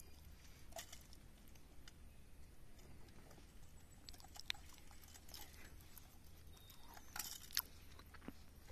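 Faint scattered clicks and light taps from handling a grouper held in a metal lip grip while the hook is worked out of its mouth, over a low steady hum.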